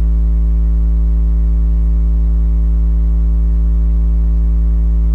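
Steady low electrical mains hum with a buzzy stack of higher overtones, picked up by the recording microphone.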